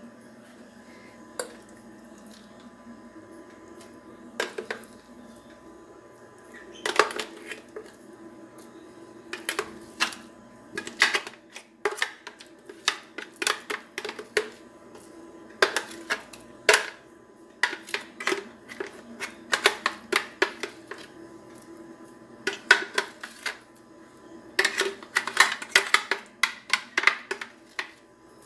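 A plastic blender jar being knocked and scraped with a spoon as thick batter is worked out of it. Irregular taps and clicks come sparsely at first, more often after a few seconds, and in a quick cluster near the end.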